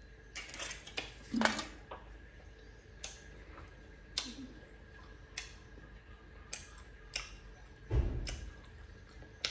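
Crisp raw cucumber being bitten and chewed close to the microphone: a series of sharp crunches, roughly one a second, with a dull thump about eight seconds in.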